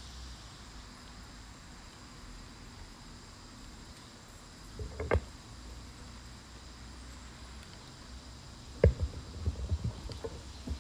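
Bumps and knocks of a microphone being handled and its stand adjusted: a short cluster about five seconds in, and a louder run of thumps near the end. Under them runs a faint steady drone of insects.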